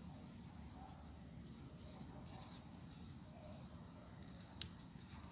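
Folded paper units of a 3D origami model rustling and scraping as fingers handle them and press them into place, with one sharp click about four and a half seconds in.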